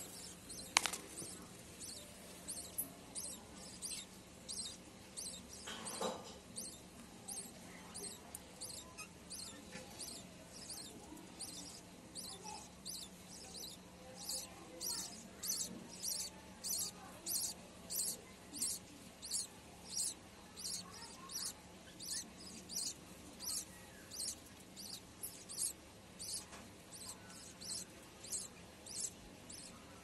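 Budgerigar chicks in the nest giving rhythmic high squeaking begging calls, about two a second, growing louder about halfway through, over a faint steady hum.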